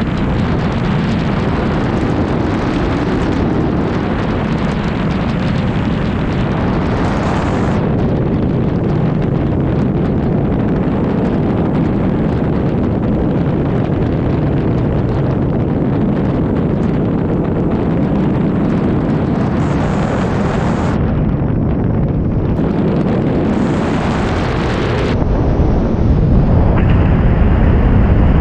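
Steady rush of airflow buffeting the externally mounted cameras of a small light plane gliding with its engine dead, getting louder over the last few seconds.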